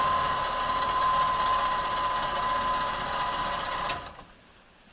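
A small motor whirring steadily with a high constant hum, cutting off suddenly about four seconds in.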